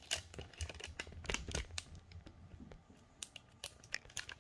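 Faint rustling with a quick, uneven run of light clicks and taps, and a low rumble through the first half: handling noise as things are moved about close to the recording.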